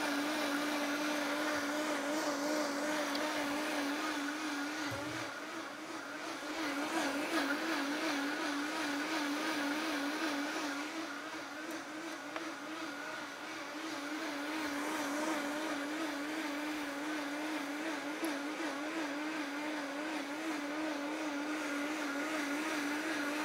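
Vitamix Ascent-series high-speed blender running at top speed, liquefying a whole-food green juice of celery, spinach, pineapple and ice. A steady motor whine whose pitch wavers slightly as the thick mixture churns.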